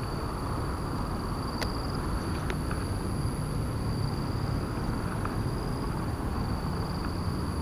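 Steady outdoor background: a low rumble with two steady high-pitched tones over it. A few light clicks about one and a half and two and a half seconds in, as a landed fish and a baitcasting rod and reel are handled.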